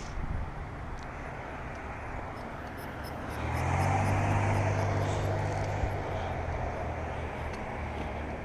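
Steady wind and road noise from riding in the rain. About three seconds in, a passing motor vehicle's engine rises quickly, then fades away over the next few seconds.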